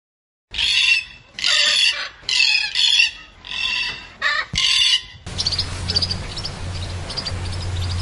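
Red-tailed black cockatoo giving a series of about six harsh, grating screeches, one after another. About five seconds in, these give way to a steady background with a low hum and faint, high chirps.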